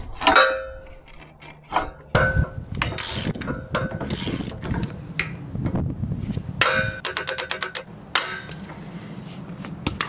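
Metal clanks, scrapes and rattles as a rusty bolt axle and its nylon roller are worked out of a rusty steel log arch's hook carriage. There are several sharp clanks that ring on, and a quick run of clicks about seven seconds in. The rollers are seized and are being taken off to be greased.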